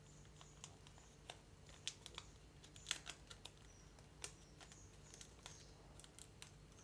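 Faint, scattered clicks and light crinkles of a thin plastic milk packet filled with batter being handled as a rubber band is wound round it.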